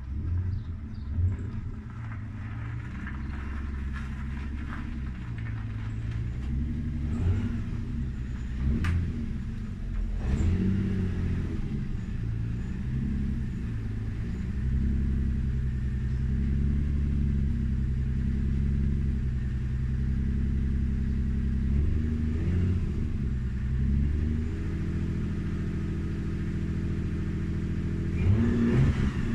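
Car engine running, its revs rising and falling several times, with a brief blip near the end.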